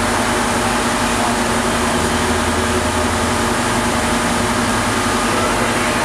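Steady mechanical drone of machinery running at a constant speed, with an even hum and no change in pitch or level.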